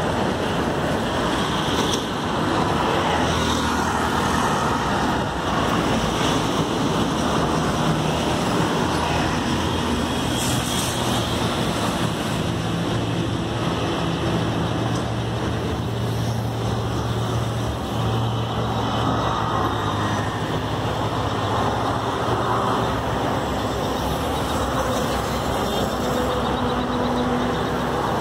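Steady road traffic noise from a busy highway, with vehicles running past. A low engine hum grows stronger about halfway through.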